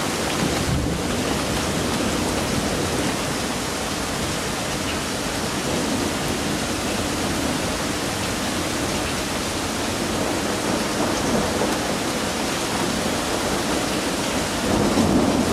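Heavy thunderstorm rain pouring steadily, swelling briefly louder near the end.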